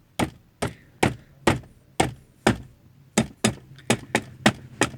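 Repeated knocking on the hard plastic glove box of a Datsun redi-GO's dashboard, about two knocks a second and quickening in the second half, a test for rattle after the gaps were packed with tape.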